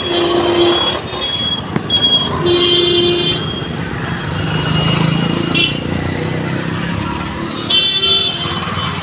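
Busy street traffic: vehicle engines running under a steady hubbub, with short high-pitched horn toots near the start, again a little under three seconds in, and once more near the end.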